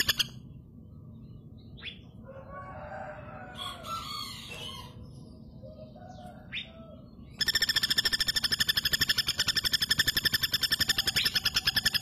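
Female flameback woodpecker (pelatuk bawang) giving its loud, rapid rattling trill, which breaks off just after the start and starts again about seven seconds in. In the gap, fainter calls of other birds.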